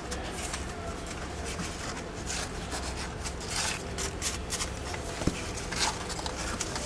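Irregular rubbing and scratching, with scattered short scrapes and small clicks over a low steady hum.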